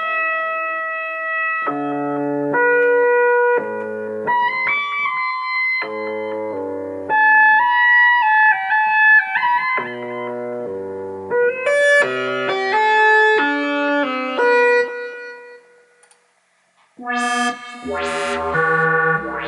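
Synthesizer preset from Steinberg's Hypnotic Dance instrument played live on a MIDI keyboard: sustained chords over a moving bass line, with a melody line on top. It stops for about a second near the end, then a brighter chord sound comes in.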